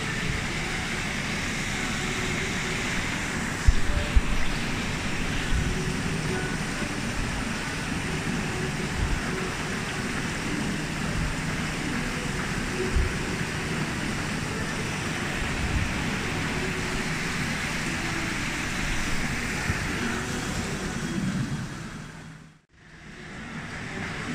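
Apple sorting and grading line running: a steady machine noise of conveyors and rollers, with a faint hum and a few low knocks. The noise fades out and back in briefly near the end.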